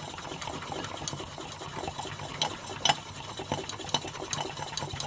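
A Super Cub piston being lapped by hand in its re-sleeved cylinder bore with cleanser as the abrasive: a steady gritty scraping as it is pushed back and forth, with small irregular clicks and one sharper click about three seconds in. The lapping wears down a fit that is still too tight.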